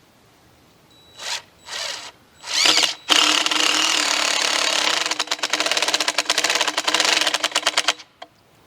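Power drill driving a screw into wood: three short trigger bursts, then a steady run of a few seconds that turns into rapid even pulsing before stopping abruptly near the end.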